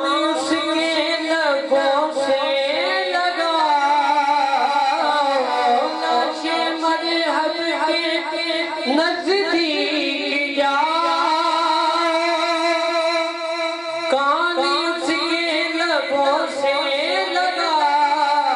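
A man singing devotional verse in the naat style into a microphone, with long held notes and ornamented runs.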